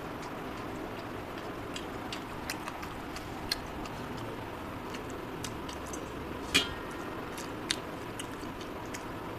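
Close-miked eating by hand: soft chewing and a scattering of short mouth and finger clicks over a steady background noise, with one sharper click about two-thirds of the way through.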